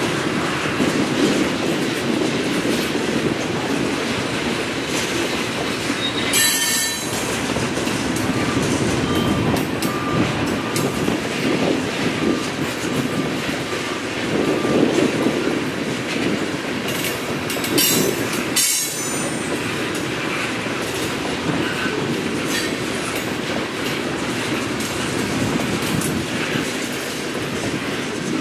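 Freight train cars rolling steadily past, wheels clacking over rail joints, with short high-pitched wheel squeals about six seconds in and again around seventeen to eighteen seconds in.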